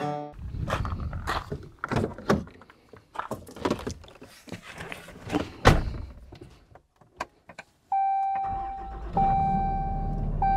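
Scattered clicks, knocks and rattles of handling. From about eight seconds, a steady electronic warning tone runs in long beeps with brief gaps, over a low hum.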